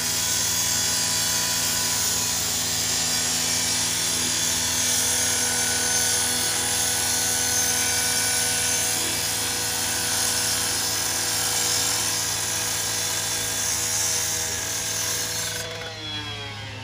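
Gas-powered rotary saw running at full throttle, its cutting blade grinding into the metal side panel of a garbage truck body: a steady engine note under a harsh, hissing grind. Near the end the grinding stops abruptly and the engine note falls away as the saw comes off the throttle.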